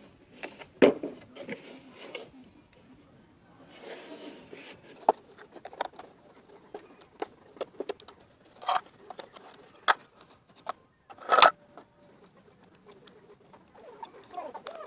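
Handling noise from a small wooden box: scattered light knocks, taps and scrapes of wood being turned, set down and opened on a concrete ledge, with one louder scrape-like knock about eleven seconds in.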